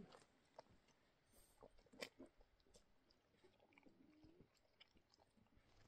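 A dog chewing and crunching raw meat scraps off the ground: faint, scattered wet clicks and crunches.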